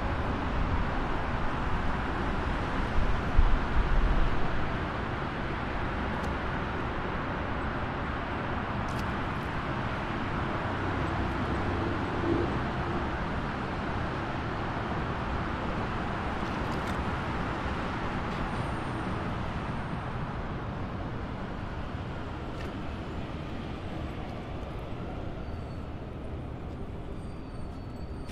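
Steady rushing and churning of a cruise ship's propeller wash in its wake, the ship under way near full speed, with a louder low rumble for a couple of seconds about three seconds in.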